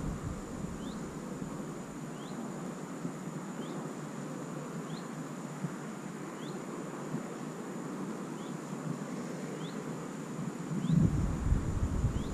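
Outdoor ambience with steady wind noise on the microphone and a faint, short, high chirp repeating about every second and a half. Heavier low gusts of wind hit the microphone near the end.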